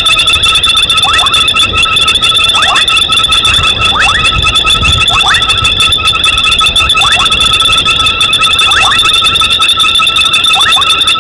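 Night chorus of frogs and insects at a waterhole: a steady, shrill trilling that doesn't let up, with short rising chirping calls every second or two.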